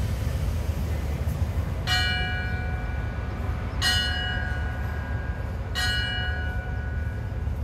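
A station bell struck three times, about two seconds apart, each stroke ringing on and fading. Under it runs the steady low rumble of the standing train.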